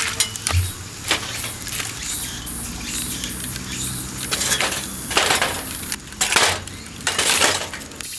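Wood fire crackling in a small metal fire pit: irregular sharp cracks with a few longer bursts of hiss.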